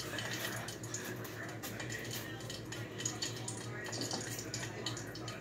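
Hot frying oil crackling and popping in many small irregular ticks, spitting because water got into it, over a steady low hum.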